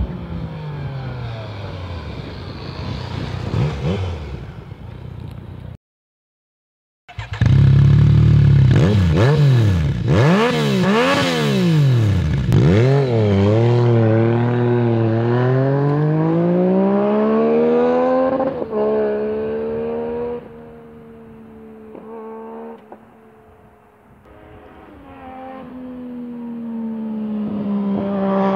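Yamaha FZ-09 (MT-09) three-cylinder engine revving through its exhaust. After a falling engine note and a short gap of silence about six seconds in, there is a run of quick throttle blips rising and falling in pitch. Then comes a slower climbing rev, and the engine settles lower and quieter before building again near the end.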